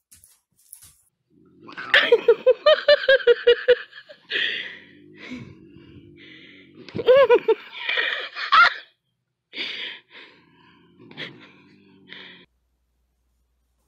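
A voice making a quick run of about ten short pulsed cries, then a few seconds later a longer cry that rises and falls in pitch, followed by several shorter bursts.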